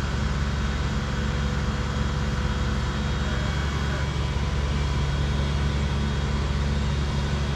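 Large engine running steadily, a low, even drone.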